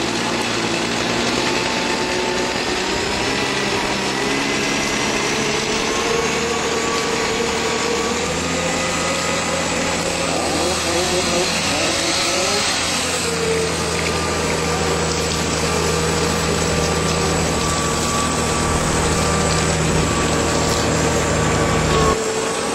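Crane's engine running steadily, with a higher wavering engine whine over it; a deeper engine note comes in about a third of the way through and drops away abruptly near the end.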